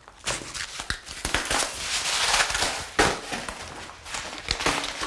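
Kitchen handling noises: packaging rustling and crackling, with quick knocks and clicks of things being moved about.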